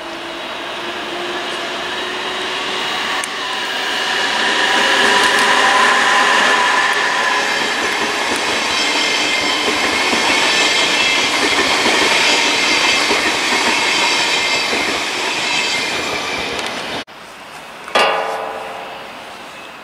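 DB Intercity 2 double-deck passenger train rolling past close by. Its running noise builds over the first few seconds and stays loud, with several steady high-pitched tones over it, then drops away abruptly about seventeen seconds in. About a second later comes a single sharp sound with a brief ringing tone.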